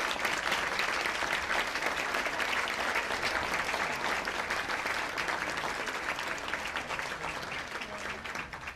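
Applause: many people clapping steadily, tapering off near the end.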